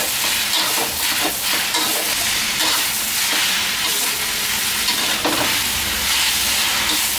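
Glass noodles and napa cabbage sizzling in a hot wok while a spatula stirs and tosses them, scraping against the pan now and then.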